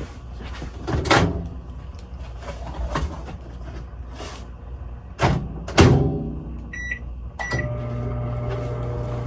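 Microwave oven being set going: a few clunks, the loudest about six seconds in, then two keypad beeps, and then the steady hum of the oven running.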